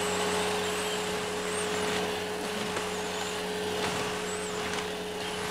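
Household electric vacuum cleaner running steadily, a constant whine over a low hum and an airy rush.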